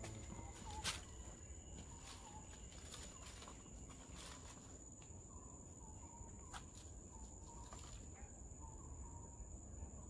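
Faint forest-floor ambience: a steady high-pitched insect drone with scattered soft clicks and rustles, the sharpest about a second in, and a few faint short bird chirps.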